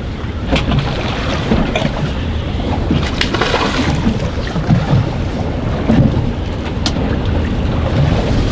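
Strong wind, over 20 knots, buffeting the microphone with a heavy low rumble on an anchored fishing boat. A few short sharp sounds come through it, about half a second in, around three and a half seconds in and near seven seconds.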